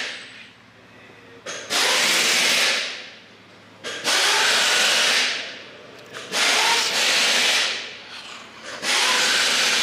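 Repeated rushes of air noise, like gusts buffeting the microphone, each about a second long and coming roughly every two and a half seconds.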